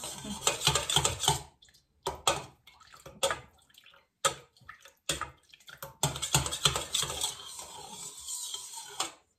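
Metal spoon stirring liquid in a stainless steel bowl, clinking and scraping against the sides with a swish of water, to dissolve sugar and yeast in the water. The stirring slows to scattered strokes in the middle, picks up again, then stops sharply near the end.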